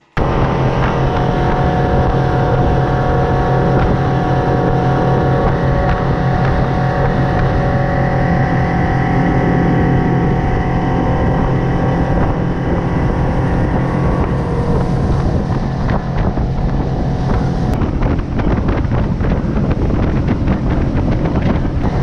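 Mercury outboard motor running steadily at speed as the boat planes across the lake, with wind buffeting the microphone.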